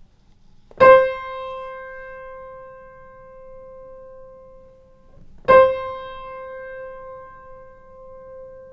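Acoustic piano: the same single note struck twice. The first, played without pedal, decays and is cut off by the damper after about four seconds; the second, about five seconds in, has the sustain pedal pressed just after the attack and rings on steadily.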